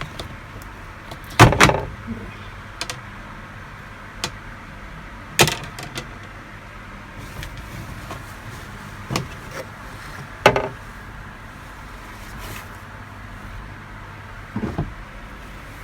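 Knocks and clunks of plastic as the lid and inner cover of a twin-tub washing machine's spin tub are handled and the spun clothes are checked, about six separate sharp knocks, the loudest about a second and a half in and again about ten seconds in.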